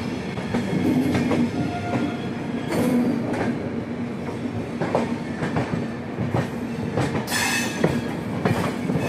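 Shri Shakti Express passenger train rolling slowly through the station yard, heard from aboard: a steady rumble of the wheels with irregular clacks over rail joints and points, and a brief high wheel squeal about seven seconds in.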